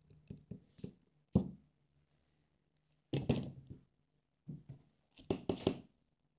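Small screws and a screwdriver handled on a rubber work mat while motor screws are taken out of a drone arm: scattered clicks, a sharp knock about a second in, then two bouts of clattering and rustling, with a plastic parts bag being handled near the end.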